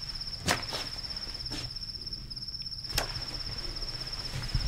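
Insects chirping in a steady, fast-pulsing high trill, with two sharp clicks, one about half a second in and one about three seconds in, and a soft low thump near the end.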